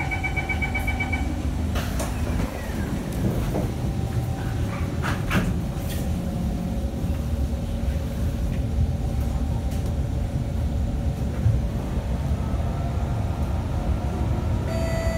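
SMRT Kawasaki C151 train: a quick series of door-closing beeps, a few knocks as the doors shut, then the train pulling out of the station. A steady low rumble runs throughout, and a motor whine rises in pitch near the end as the train picks up speed.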